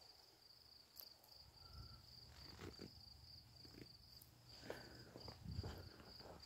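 Faint, steady, pulsing high chirping of night insects, with a few soft thuds and rustles scattered through it, the loudest about five and a half seconds in.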